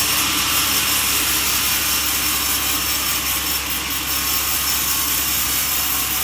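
Sawmill saw cutting through a log: a loud, steady, high hiss that does not let up.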